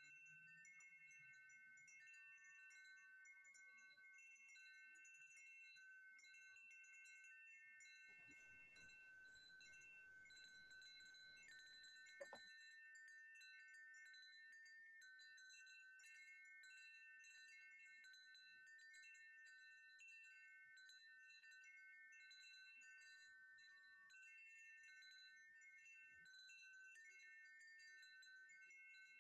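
Faint chimes ringing: many overlapping, long-held high tones, with a single short click about twelve seconds in.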